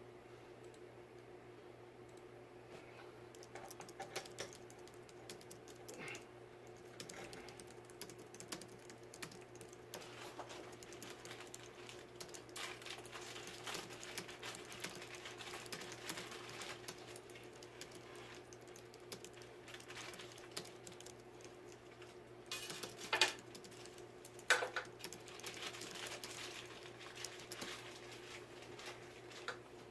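Small fan parts being handled during assembly: scattered light clicks and taps, with two sharper clacks a little past two-thirds of the way, over a steady faint hum.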